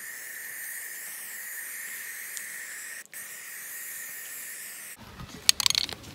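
Aerosol can of Dymark line-marking spray paint hissing steadily as it sprays, with a brief break about three seconds in. Near the end the spraying stops and there are a few sharp knocks.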